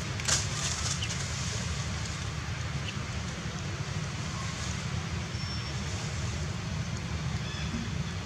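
Steady outdoor background noise: a low rumble with an even hiss above it, and one brief click about a third of a second in.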